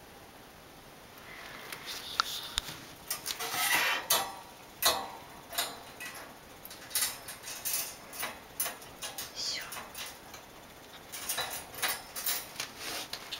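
Irregular rustling with light clicks and clinks, from handling around a wire pet cage.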